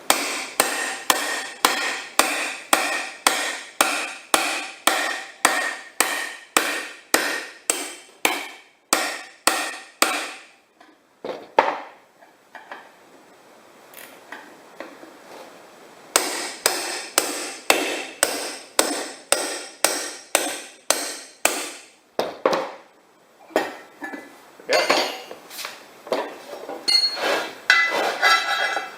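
Metal strokes on a steel wheel, about two a second, each leaving a brief ringing from the steel rim. There are two long runs with a pause of a few seconds between them, then a few uneven strokes near the end.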